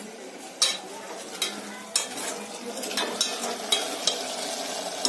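A metal ladle stirring a thick cabbage and chana dal curry in an aluminium pot, scraping and knocking against the pot's sides about seven times, over a steady sizzle of the finished curry cooking on the stove.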